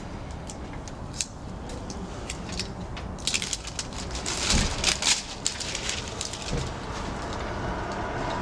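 Crinkling and crackling of a self-adhered sill flashing membrane and its plastic release backing as it is handled, peeled and pressed down. The crackles are scattered at first and densest in a flurry around the middle.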